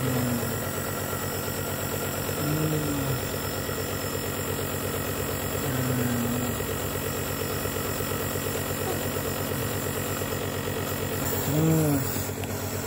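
Compressor nebulizer motor running with a steady buzzing hum, turning liquid medicine into mist during a breathing treatment.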